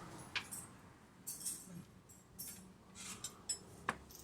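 Light metallic clinks and clicks of hand tools and parts being handled during under-chassis work, a few scattered taps spaced about a second apart.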